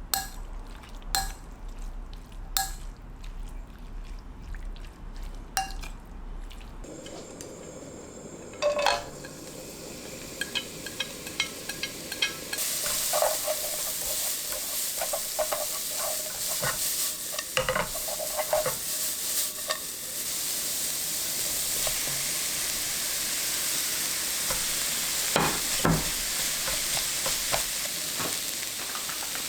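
A few sharp knocks, then food hitting a hot pan and frying: a steady sizzling hiss sets in about twelve seconds in, while a utensil clinks and scrapes against the pan as the food is stirred.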